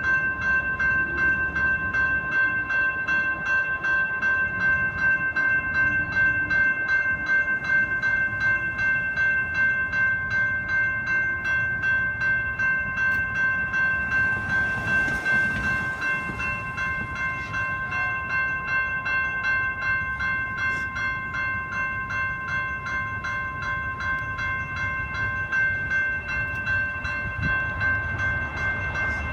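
Railroad crossing warning bell ringing in rapid, even strokes, the signal that the crossing is active for an approaching train. A short hiss comes about halfway through, over a low traffic rumble.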